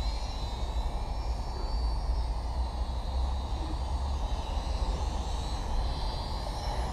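Syma X5SW toy quadcopter's small motors and propellers whining in flight, a faint high wavering pitch, over a steady low rumble of wind on the microphone.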